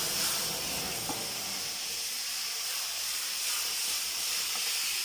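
Garlic, ginger and chilli sauce sizzling steadily in hot oil in a pan, with a few faint ticks.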